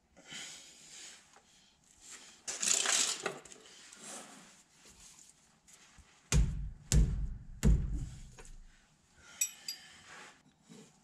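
Metal clinks and scrapes of a long hand wrench working a 15/16 bolt on a truck's drive-axle air brake chamber, with three heavy knocks a little past halfway.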